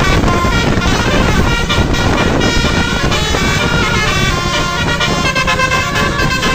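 Telolet horn, the multi-tone musical air horn fitted to Indonesian buses and trucks, playing a tune of notes that step from pitch to pitch, over the low rumble of engines.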